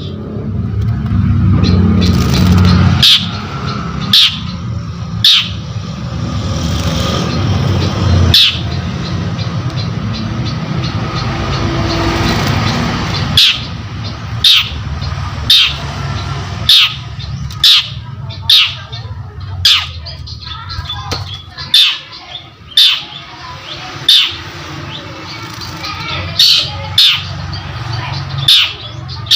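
Long-tailed shrike (cendet) calling in full voice: short, sharp, loud notes repeated about once a second in the second half, over a steady low hum.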